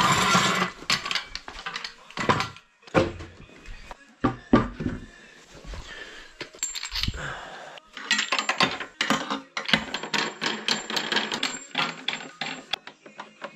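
Loose metal hardware and hand tools clinking, knocking and clattering as they are picked up and handled, with a quick run of small clicks in the second half.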